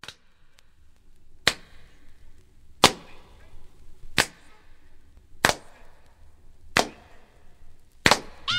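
Edited-in intro sound effect: a series of about seven sharp cracks, evenly spaced about a second and a half apart, with faint hiss between them.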